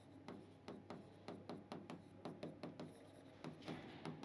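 Faint taps and scratches of a writing stroke on a board, one after another as letters are written, at about three or four a second.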